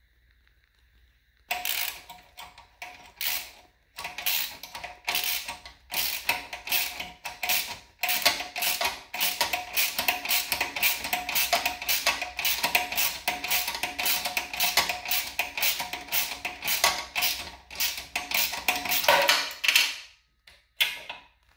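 Hand socket ratchet clicking in quick repeated strokes through a long extension, turning a bolt at the engine mount. It starts about a second and a half in and stops near the end.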